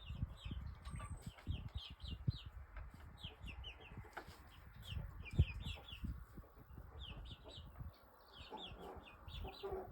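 Chickens calling: many short, high, falling peeps in quick clusters, with lower clucks near the end. Irregular low thumps run underneath.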